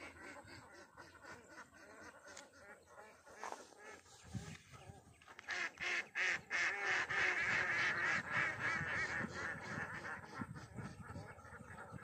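A chorus of many animals calling at once, swelling to its loudest in the middle and then easing off.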